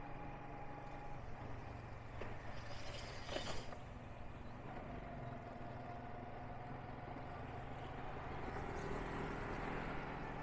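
Motorbike running steadily along a road, its engine hum mixed with wind and road noise, with a brief louder rush of noise about three seconds in.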